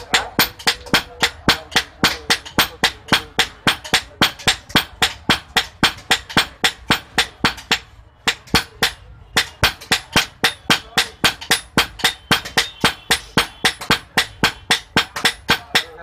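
Hand hammers forging a red-hot steel chopper blade on an anvil: a quick, steady run of ringing metal blows at about four a second, with a pause of about a second roughly halfway through before the hammering resumes.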